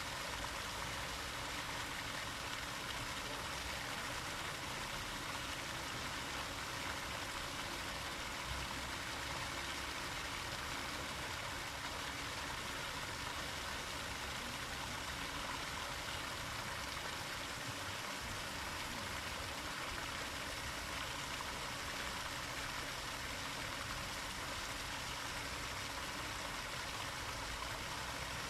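Park water fountain splashing steadily, an even rushing hiss of falling water with no breaks.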